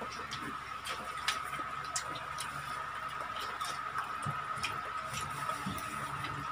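Eating sounds: scattered small clicks and smacks from chewing fried chicken and pulling it apart by hand. A steady high-pitched hum runs underneath.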